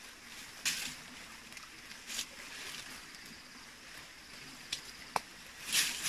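Dry leaves and palm stalks rustling and scraping in short bursts as hands pull snake fruit clusters from the base of a salak palm, with one sharp click about five seconds in.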